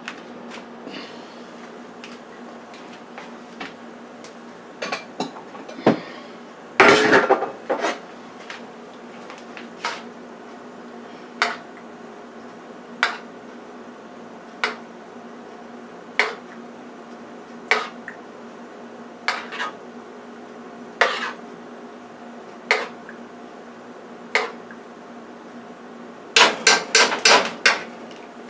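A metal spoon knocks against a skillet and bowl while cheese sauce is spooned out, one sharp clink about every one and a half seconds. There is a louder clatter about seven seconds in, a quick flurry of clinks near the end, and a steady low hum underneath.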